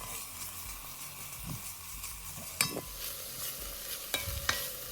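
Onions frying in melted butter in a pan, a steady sizzle, while a utensil stirs them, clinking against the metal pan a few times with a short ring. The onions are turning golden brown.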